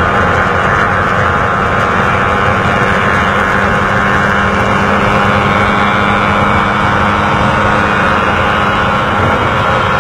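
Motorcycle engine running at road speed under heavy wind rush on the camera microphone, a loud, steady noise.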